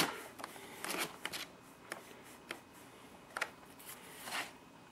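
Pages of old paper service manuals flipped and riffled by hand: a series of brief, faint paper swishes and rustles.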